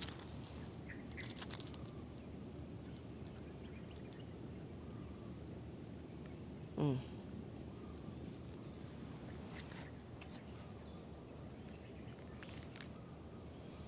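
Insects shrilling in a steady, high-pitched chorus, with a brief human vocal sound about seven seconds in and a few clicks near the start.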